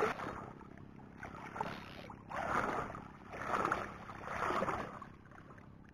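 Soft splashing and sloshing of shallow seawater, coming in four gentle swells about a second apart.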